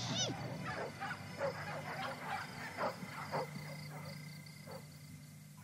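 Scattered short animal cries in a night-time film soundscape, growing fainter toward the end over a low steady hum.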